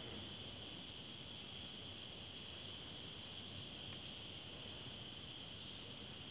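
Steady, high-pitched chorus of insects, an even continuous buzz.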